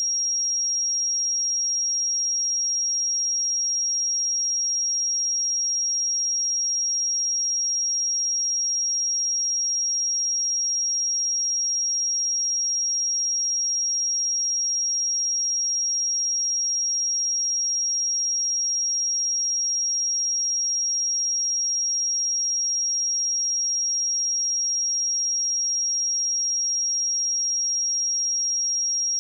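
A steady pure sine-wave test tone at 5621 Hz, a single high-pitched constant tone with no change in pitch or level.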